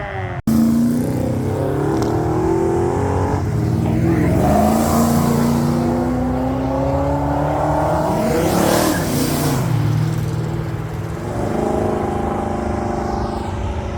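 Muscle car engines accelerating, the note rising in pitch over several seconds, with a noisy rush near the middle as a car passes and a steadier engine note near the end.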